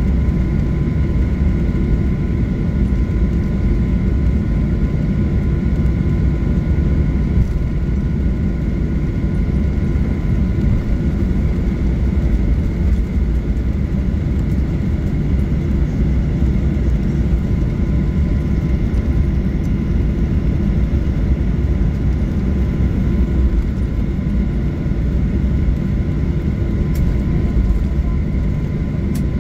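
Jet airliner engines heard from inside the passenger cabin: a loud, steady rumble with a few steady high whining tones on top, unchanging throughout.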